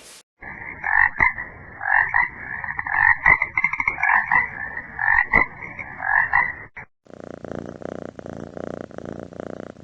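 Frogs croaking over and over in a chorus, played as a sound effect. About seven seconds in, the croaking stops and a cat's purring takes over.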